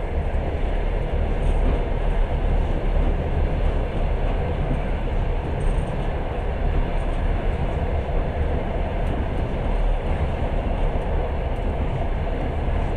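Long-distance passenger train running along the track, a steady low rumble of the moving carriage heard from on board.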